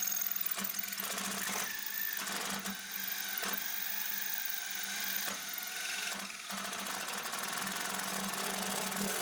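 Electric drill running steadily under load, its bit boring through hard weld metal in a door hinge, with the motor holding a steady hum.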